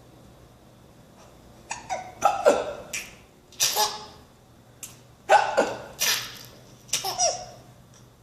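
A baby hiccuping and laughing. Sharp hiccups and short laughing bursts come in quick clusters from a little under two seconds in, with some bursts dropping in pitch.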